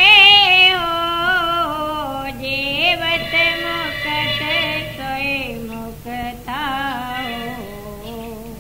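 A singer holding long, wavering, ornamented notes of a devotional bhajan, the melody stepping and sliding gradually downward.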